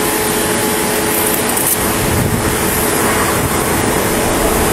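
Police car idling with its air conditioning running: a steady, even rush with a faint constant hum underneath.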